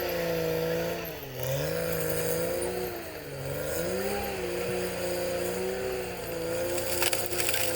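CAT D6R XL bulldozer's diesel engine working under load, its pitch sagging and recovering a couple of times as it lugs. A burst of rattling and clanking comes near the end.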